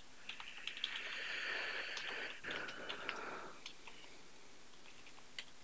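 Faint computer keyboard keystrokes, a few scattered light clicks, with a soft hiss during the first few seconds.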